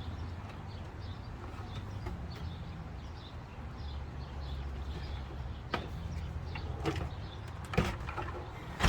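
A desktop computer case being handled: a few clicks and knocks in the second half, the loudest near the end, over a low steady hum.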